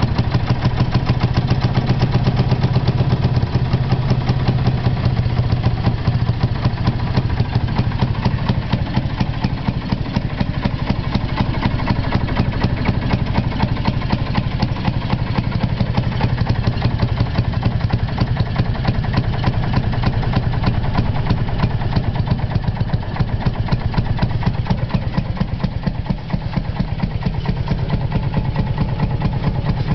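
Fairmont railroad speeder car's engine running steadily with a rapid, even chugging, on its first run after ten years unused.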